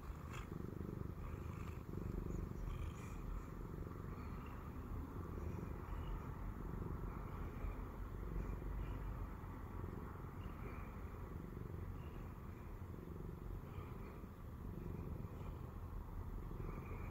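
Siamese cat purring steadily at close range, a low continuous rumble that swells and fades every second or two with its breathing.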